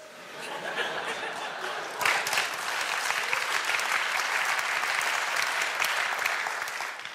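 Studio audience applauding. The clapping builds up, turns dense and loud about two seconds in, and dies away near the end.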